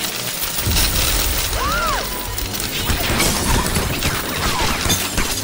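Cartoon soundtrack of music with crashing and dense popping effects as popcorn bursts, and a short rising-then-falling squeal about two seconds in.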